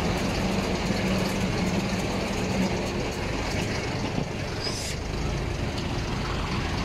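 Military lorry's engine running steadily as the lorry drives slowly past, towing a field gun. There is a brief high hiss about five seconds in.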